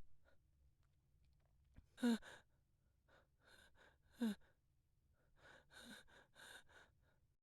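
A man panting heavily, winded as if from running: two short voiced gasps that fall in pitch, about two and four seconds in, then a run of quieter breathy puffs.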